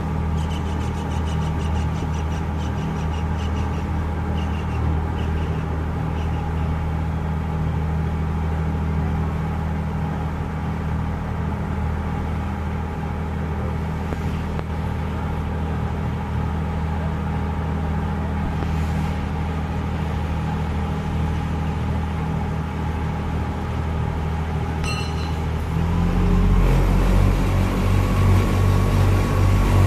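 Houseboat engine running at a steady hum. About four-fifths of the way through, it gets louder and deeper.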